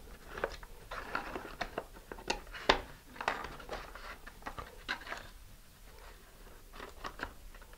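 Hands fitting a booster pod tube against a model rocket's painted body: scattered small clicks and taps with light rubbing, one sharper click a little under three seconds in.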